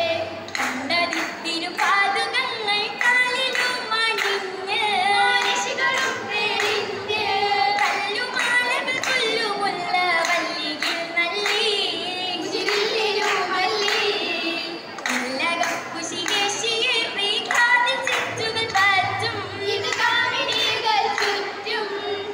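Group of girls singing a Mappila song in chorus for an Oppana dance, with regular hand claps keeping the rhythm.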